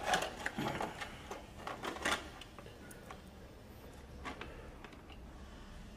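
Small screws and a screwdriver clinking and rattling in a small plastic tub as a hand rummages in it. The light clicks come in a cluster over the first two seconds, with a couple more about four seconds in.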